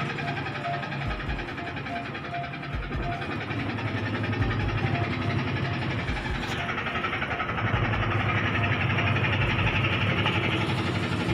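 Singer automatic top-loading washing machine running near the end of its cycle, a steady mechanical hum and whir of the drum spinning out the clothes. About six seconds in, a click, then a higher rushing sound builds.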